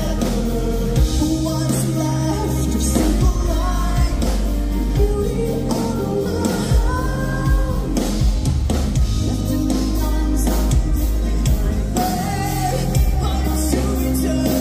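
Progressive metal band playing live, with a lead singer's sung vocals over distorted guitars, bass and drums, picked up through a phone's microphone in the venue.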